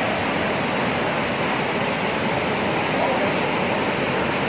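Muddy floodwater rushing past in a fast, swollen torrent: a loud, steady, unbroken roar of moving water.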